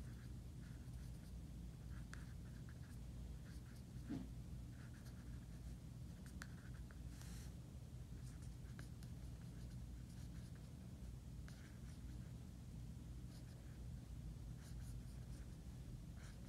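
Thin-tipped red Sharpie marker scratching across paper in short, irregular squiggly strokes as swirl designs are drawn, faint, over a steady low hum.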